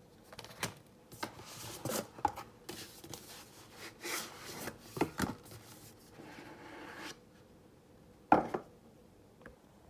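Cardboard packaging rustling and scraping as a white cardboard phone box is slid out of a cardboard mailer box and handled, with a few light clicks and taps. Things go quieter after about seven seconds, apart from one sharper knock about a second later.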